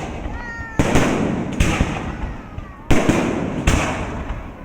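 Aerial fireworks bursting: four loud bangs roughly a second apart, each trailing off in a decaying rumble.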